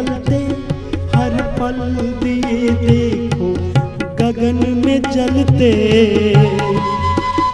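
Indian devotional music: tabla strokes under a wavering, gliding melodic line over a held low drone.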